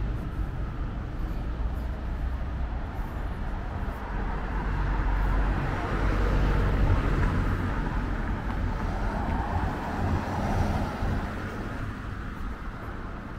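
Road traffic passing on a city street: a steady rumble with a vehicle swelling past about five to seven seconds in and another shortly after ten seconds, fading toward the end.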